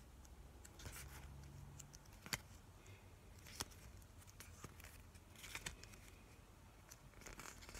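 Faint handling sounds of a stack of baseball trading cards being thumbed through by hand: soft slides of card on card and a few light clicks spaced a second or more apart.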